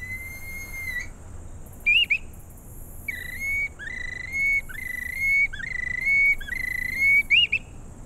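Bamboo bird whistle blown to imitate waterbird calls and lure the birds in. First comes one long clear note, then a short wavering note about two seconds in. After that comes a run of held notes, each opening with a quick upward flick, and a few short quick notes near the end.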